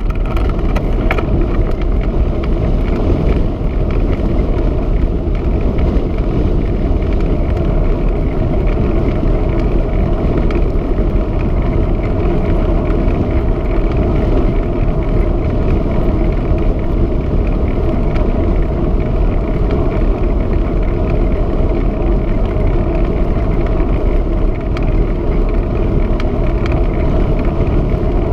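Steady wind rush buffeting the microphone of a camera on a moving bicycle, mixed with the rumble of the bicycle's tyres rolling on tarmac.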